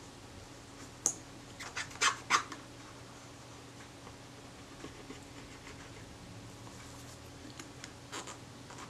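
Pointed wooden stick scraping softened adhesive off a camera's metal base plate. A few short scratchy strokes come about a second in, the loudest pair around two seconds in, and a couple more weak ones near the end, over a faint steady hum.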